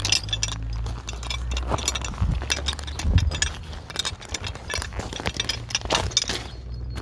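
Metal clinking and jangling from a builder's tool belt and its fittings as he moves, with rapid, irregular clicks and rustle from the phone being handled close to the body. A low steady hum runs underneath.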